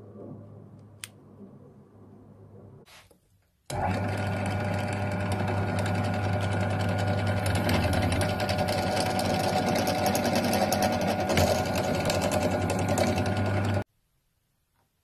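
Bench drill press running, its bit drilling into an orange plastic LEGO piece clamped in a machine vise. The steady motor sound starts abruptly about four seconds in and cuts off just before the end.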